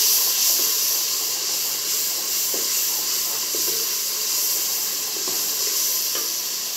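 Spiced onion-tomato masala sizzling in hot oil in a pressure cooker, a steady hiss that eases slightly toward the end, with a few soft scrapes of the stirring spoon.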